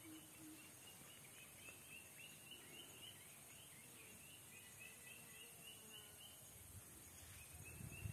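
Faint outdoor ambience: a steady run of short high chirps from a small animal, about three or four a second, over a faint high hiss. A low rumble rises near the end.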